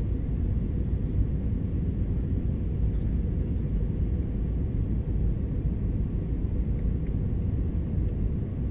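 Steady low rumble of a passenger aircraft in flight, heard inside the cabin: engine and airflow noise.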